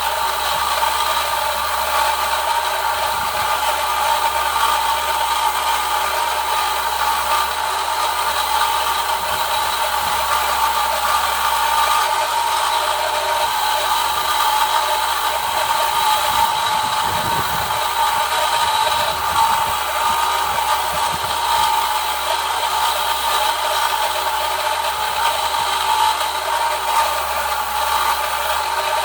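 An electric power tool running steadily against the steel of a cold chisel, grinding or sanding it. It makes a constant high whirring rasp that does not stop.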